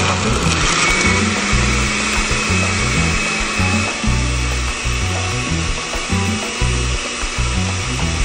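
Countertop blender with a glass jar running at a steady speed with a faint high whine, liquefying cucumber chunks, mint and water. Background music with a bass line plays under it.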